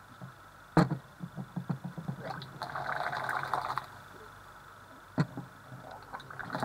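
Hot water poured from a thermos flask into a plastic measuring jug of chocolate powder: a loud knock about a second in and a run of small clicks and knocks, then the water stream splashing for about a second, and another knock near the end.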